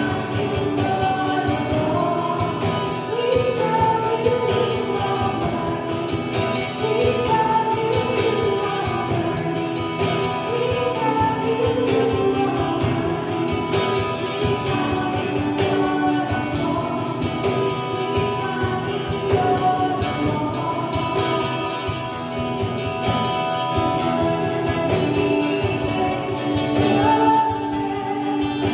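Gospel worship music: a group of voices singing together over a full band with a steady beat.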